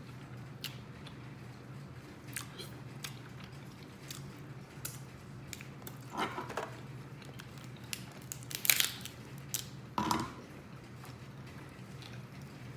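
A person chewing and biting food close to the microphone: wet mouth sounds and scattered small clicks, with a few louder bursts about six, nine and ten seconds in, the one near nine seconds the loudest. A low steady hum runs underneath.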